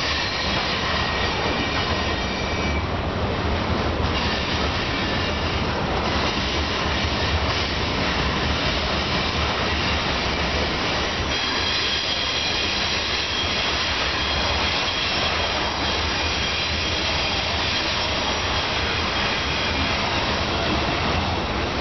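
Covered hopper cars of a freight train rolling past on a curve, steel wheels running on the rails with a steady high-pitched wheel squeal that grows stronger about halfway through.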